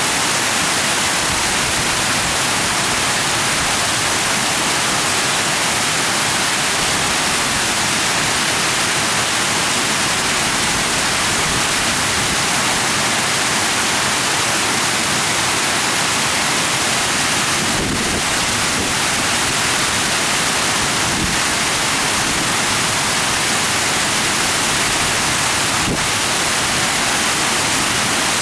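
Steady, loud rushing noise: an even hiss with no rhythm or pitch, like rushing water or static, with two faint ticks late on.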